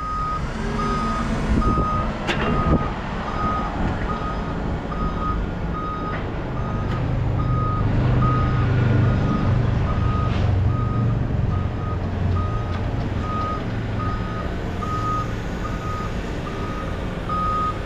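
Truck backup alarm beeping steadily, about one beep a second, over the low rumble of the truck's engine, which grows louder in the middle.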